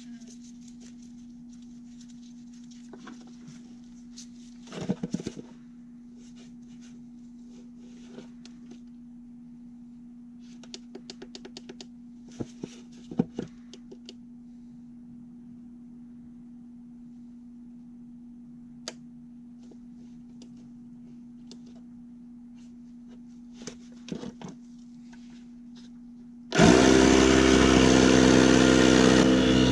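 Small clicks and rattles as a portable air pump's hose is threaded onto a tire valve stem, over a faint steady hum. Near the end the Audew digital air pump's motor starts suddenly and runs steadily and loudly, inflating a lawn tractor tire.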